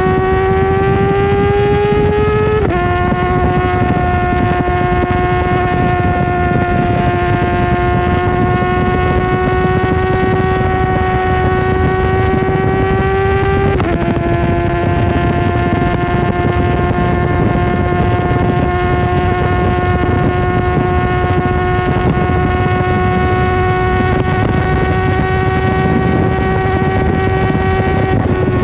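Kawasaki ZX-4RR's 399 cc inline-four engine running at high revs. The revs drop sharply at upshifts about 2.5 seconds in, about 14 seconds in and near the end, and hold high and nearly steady in between, with wind rushing over the microphone.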